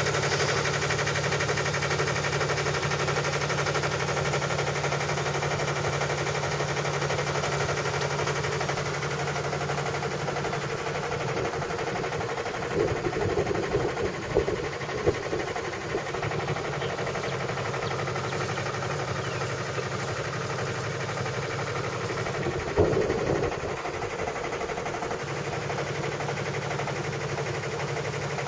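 A sailboat's motor running steadily at light throttle, pushing the boat at cruising speed. A few brief knocks come about halfway through, with a sharper one about two-thirds of the way in.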